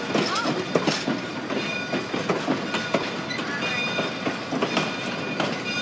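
Railroad cars rolling along the track: irregular clicks and knocks of steel wheels over rail joints, with thin, steady, high wheel squeals running under them.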